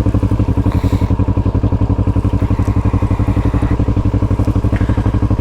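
Motorcycle engine running steadily at low speed, with an even, rapid pulsing beat.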